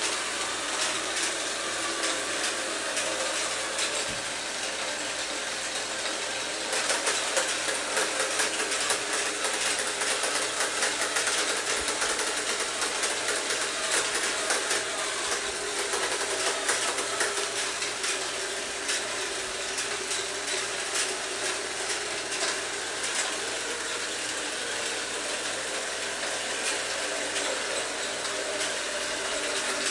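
LEGO Power Functions XL motor driving a LEGO Technic combine harvester's chain, gears and moving parts: a steady whir with a rapid clicking rattle, which grows louder from about seven seconds in and eases again about twenty-two seconds in.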